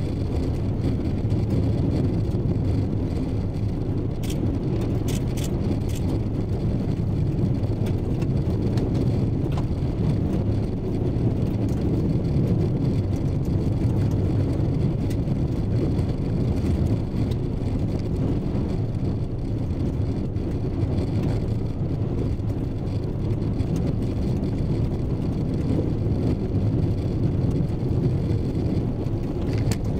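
Vehicle driving along a gravel road, heard from inside the cabin: a steady low rumble of tyres and engine.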